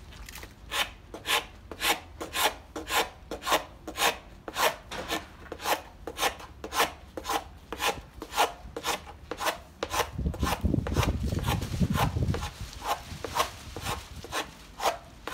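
Hand scraper rasping thick, hard, baked-on antifouling off a fibreglass yacht hull in short, regular strokes, about two a second, exposing bare patches for moisture-meter readings. A low rumble joins for a couple of seconds about ten seconds in.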